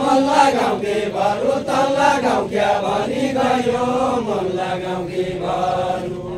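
A group of voices singing a Nepali deuda verse together, unaccompanied, as a slow unison chant with long, wavering held notes.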